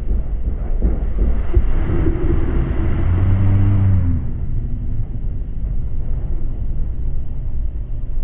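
Roller-coaster mine train rolling slowly along its track: a steady low rumble. About three to four seconds in, a brief droning tone rises over the rumble, and a single knock comes a little before it.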